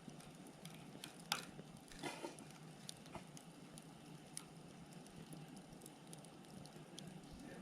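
Wood fire burning with a faint steady hiss and scattered crackles and pops of burning firewood, the sharpest pop just over a second in and a short run of crackles about two seconds in.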